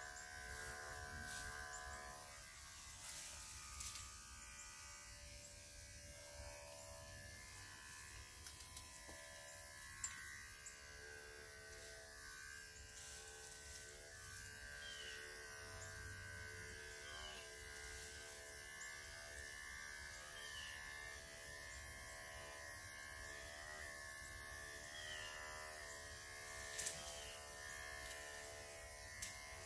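Electric dog grooming clippers running in a steady buzz while clipping a Great Pyrenees' coat, with a few sharp clicks along the way.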